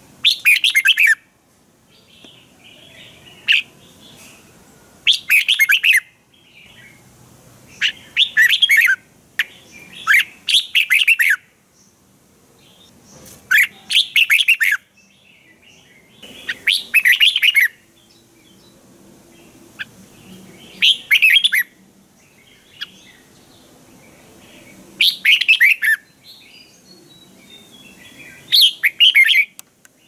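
Red-whiskered bulbul singing: about nine short, loud song phrases, each about a second long and a few seconds apart, with faint chirps between them.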